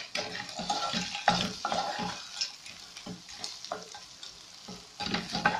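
Wooden spoon stirring chicken, peas and onion in a frying pan, scraping and knocking against the pan in irregular strokes, while the food sizzles in the oil.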